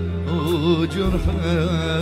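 Arabic music: a wavering, ornamented melody line with vibrato over a steady low bass.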